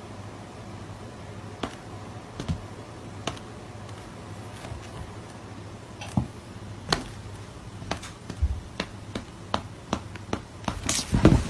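Irregular light taps and clicks over a steady low hum, crowding into a quick run of louder knocks near the end.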